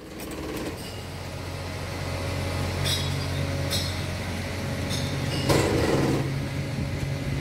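Tomra reverse vending machine running with a steady low mechanical hum as a drink container is fed into its glass slot, with a few sharp clicks and a louder rattle about five and a half seconds in.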